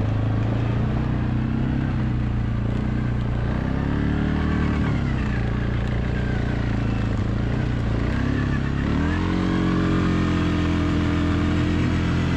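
An engine running steadily, revved up and back down about four seconds in, then revved up again near nine seconds and held at the higher speed.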